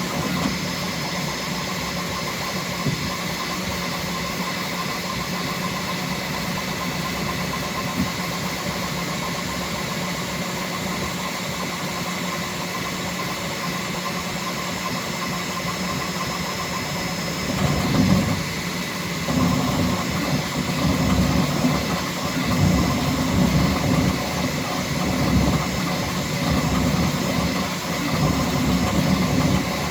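Bambu Lab X1C 3D printer running a fast print in PLA: a steady mechanical hum with several constant tones, turning louder and uneven, rising and falling quickly, about two-thirds of the way through.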